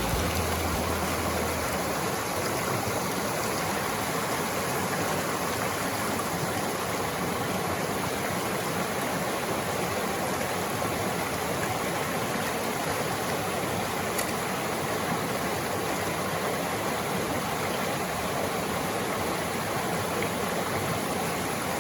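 Mountain stream water rushing steadily, an even continuous rush.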